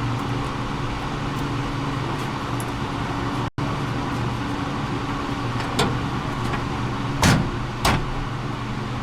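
A steady low mechanical hum, with a few sharp clicks and knocks in the second half, the loudest about seven seconds in. The sound cuts out for an instant about three and a half seconds in.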